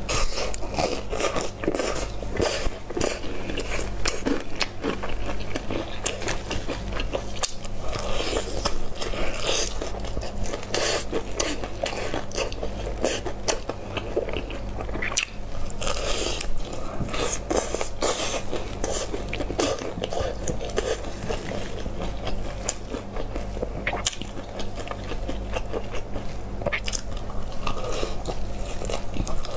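Close-miked biting and chewing of crispy breaded fried chicken, with irregular crunches of the crust throughout, over a steady low hum.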